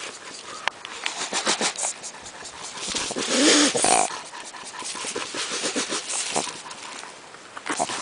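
Southern tamandua (tamanduá-mirim) giving a series of breathy huffs and hisses in its upright defensive stance, as it does when threatened. The loudest huff comes about three and a half seconds in.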